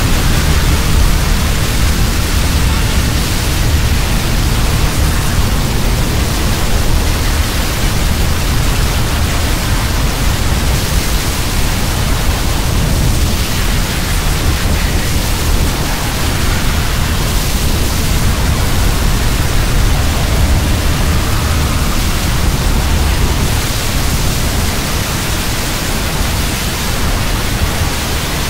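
Loud, steady rushing noise: a cartoon falling-wind sound effect.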